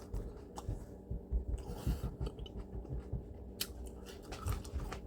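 Close chewing of whole raw habanero peppers: irregular soft chews and small crunching clicks, with one sharper click about three and a half seconds in. The peppers are tough, like chewing through rubber.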